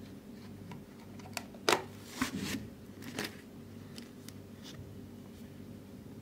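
Clear plastic tub and lid of kinetic sand being handled and turned over: a string of hard plastic clicks and knocks, the loudest a little under two seconds in and a short cluster just after, then a few lighter ticks. A steady low hum runs underneath.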